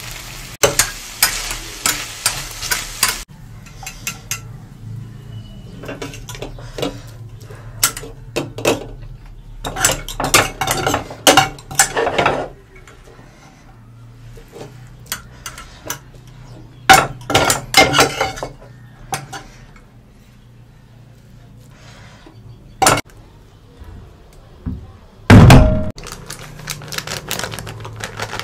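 A steel ladle clanks and scrapes against a stainless steel wok in repeated bursts as vegetables are stir-fried and tossed, with a faint sizzle underneath. There is a single heavy thud near the end.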